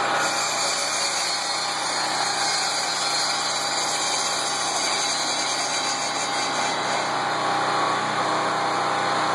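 Chicago Electric 10-inch, 13-amp table saw running steadily, its blade raised up through the sled's base to cut the track.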